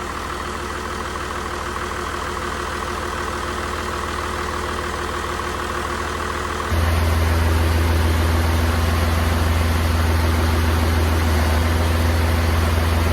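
Cummins diesel engine idling steadily. About halfway through, the sound abruptly becomes louder and heavier in the low end.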